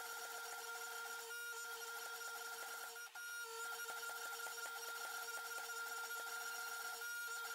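Hydraulic forging press running with a faint, steady whine while its dies flatten a hot, hole-drilled raindrop Damascus billet. The tone breaks briefly about a second and a half in, around three seconds in, and near the end.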